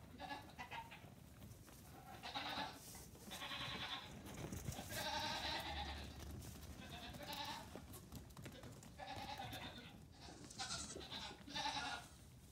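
Young Nigerian Dwarf goat kids bleating: a string of short, high calls one after another, several at times overlapping.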